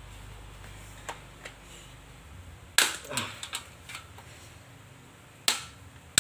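Plastic locking pins of an airless solid-rubber bicycle tyre snapping loose from the rim as the tyre is pried off by hand. Two light clicks come first, then a loud sharp snap about three seconds in with a few smaller clicks after it, and another sharp snap near the end.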